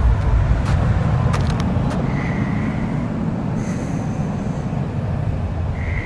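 Steady low rumbling noise, fading slightly, with a few faint clicks and two brief high-pitched tones, one about two seconds in and one near the end.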